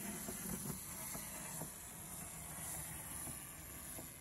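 A small plastic wind-up toy's clockwork mechanism running, heard as a faint steady hiss with a few light clicks.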